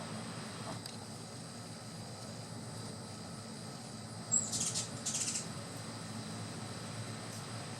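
A short high bird chirp about halfway through, followed at once by two brief buzzy high-pitched bursts, over a steady background hum.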